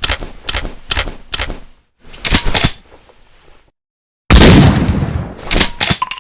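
Mossberg 500 Field pump-action shotgun: four sharp clacks, then the slide racked at about two seconds in, then one loud shot with a long rolling tail, then the slide racked again near the end.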